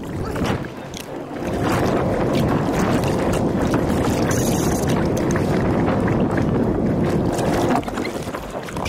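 Rushing wind and water noise around a kayak at sea, mixed with scattered knocks and handling sounds. The rush swells loud about two seconds in and drops back near the end.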